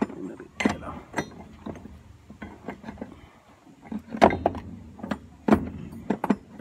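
Rough castings for a Climax locomotive knocking against each other and the wooden crate as they are shifted and packed in by hand: a series of irregular knocks, the loudest a little past four seconds and about five and a half seconds in.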